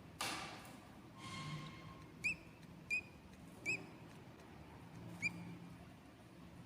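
Baby budgerigar chicks in a nest box begging for food: a couple of raspy, hissing calls, then four short, high peeps.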